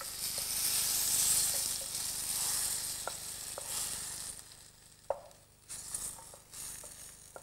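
Octopus and tomato sauce sizzling in a hot stainless-steel frying pan with the gas just turned off, the hiss dying away over the first four seconds or so. A few light clicks of metal tongs against the pan come in the second half.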